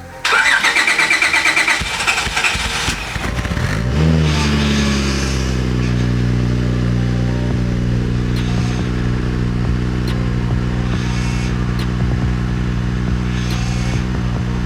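Acura TL V6 cold-started after sitting for years: the starter cranks it for about three seconds, it catches about four seconds in with a short rev, then settles into a steady idle. The power steering pump is loud and the exhaust is subtle.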